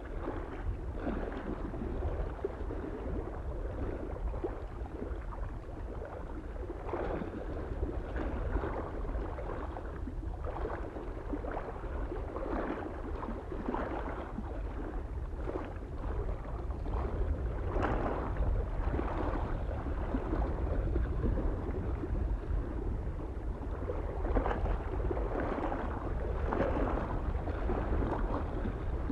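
Small lake waves lapping and splashing against the shore in irregular surges, over a steady low rumble of soft wind.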